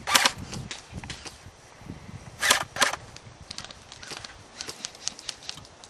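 Airsoft rifle firing: a loud short burst right at the start, another pair of sharp shots about two and a half seconds in, then fainter scattered shots and clicks.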